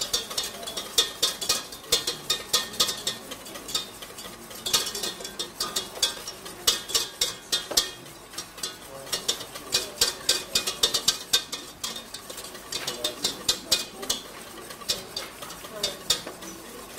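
Wire whisk beating a warm emulsified butter sauce in a stainless steel saucepan, in quick runs of metal clicks and scrapes against the pan with brief pauses between them. Clarified butter is being whisked in to build the emulsion.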